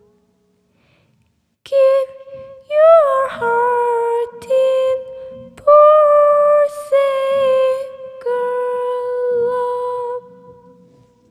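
A high voice humming a slow wordless melody, unaccompanied, in long held notes with short slides between them. It begins after nearly two seconds of silence and fades out near the end.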